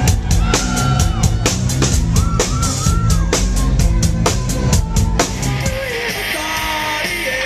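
Live rock band heard from the audience: a steady drum-kit beat under a melody line. About six seconds in it cuts to a different live song with less bass and more high-end hiss.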